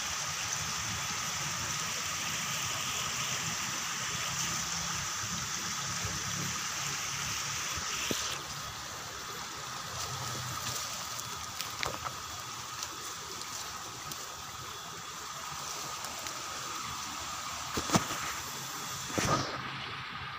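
Steady rushing background of running water. A few brief knocks and rustles of undergrowth being pushed through come over it; the two loudest are close together near the end.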